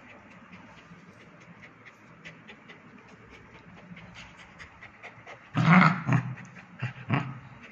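Cocker spaniel puppy panting quickly with small clicks as it mouths a hand, then, about five and a half seconds in, a few loud short growling snarls as it bites and thrashes.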